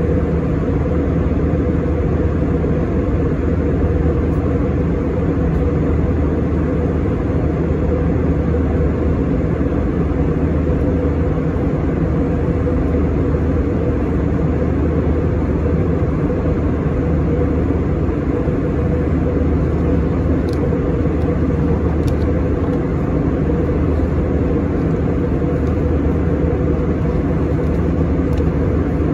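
Steady drone inside an Airbus A321 in cruise flight: engine and airflow noise with a low hum, unchanging throughout.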